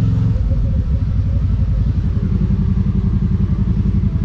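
2022 CFMOTO UForce 1000 side-by-side's V-twin engine running, heard from inside the cab. About half a second in, the engine eases off from a steady higher note and settles into a lower, pulsing run as the machine moves down a rough dirt trail.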